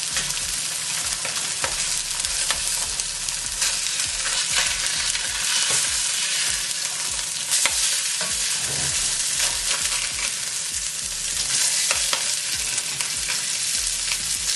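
Salmon fillets searing in a hot pan: a steady sizzle with scattered small pops of spitting fat.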